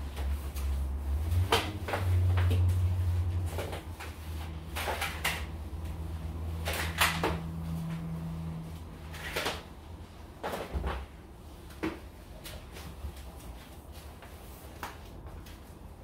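Household clatter: scattered knocks and bumps of things being handled, moved and set down while a room is cleaned, over a low rumble that is strongest in the first few seconds.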